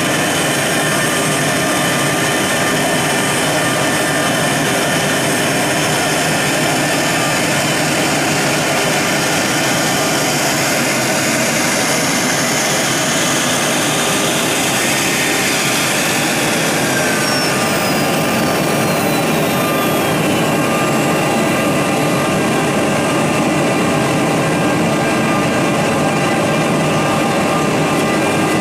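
CNC wood router at work: a steady high-speed spindle whine over the continuous hiss of the router bit cutting grooves in a wood panel.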